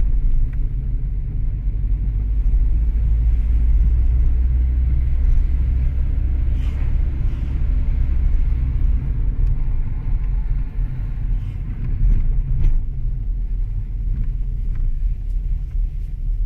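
A car driving, its steady low road rumble filling the sound.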